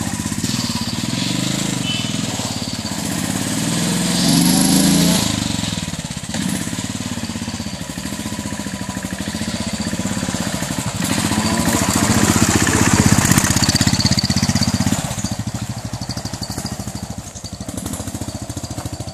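Motorcycle engine running under throttle over rough dirt, the engine note rising and falling with the throttle. It is loudest as the bike passes close, then fades as it rides away.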